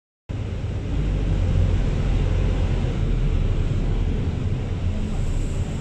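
Steady low rumble and noise inside a bus, from its engine and the road.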